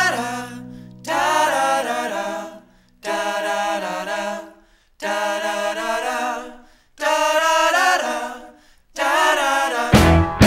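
Background music: a stripped-down vocal passage of sung phrases about every two seconds with short pauses between them, the bass dropping out at the start. The full band with drums comes back in near the end.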